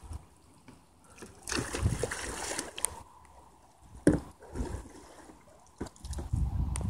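Water splashing and sloshing around a kayak as it is tipped over and rolled back upright in shallow water. There is a burst of splashing about a second and a half in, a sharp knock around four seconds, and low sloshing again near the end.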